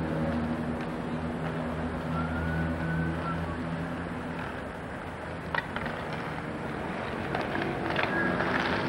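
Hockey sticks and balls clacking sharply on asphalt a few times, over a steady low engine-like hum.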